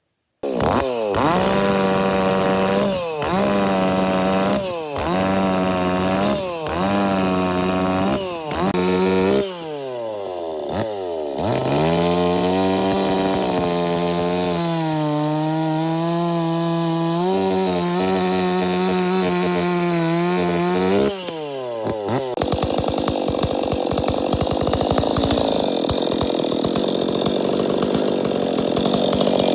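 Ported Stihl 026 two-stroke chainsaw with a bullet-hole muffler, revved in about five quick blips. It is then held at high speed with a wavering pitch, and about two-thirds of the way through it turns to a rough, noisy rasp as the chain cuts into wood.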